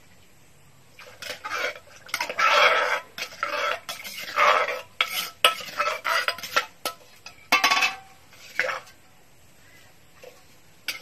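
A metal ladle clinking and scraping against pots in irregular bursts while water is ladled and poured from a clay pot into a cooking pot, splashing. The sounds start about a second in and die away near the end.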